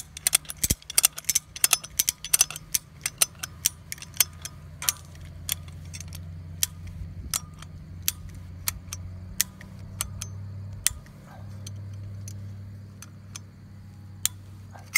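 In-line wire strainer's ratchet clicking as its handle is cranked to tension high-tensile fence wire. The clicks come in quick runs for the first few seconds, then slow to single clicks spaced out.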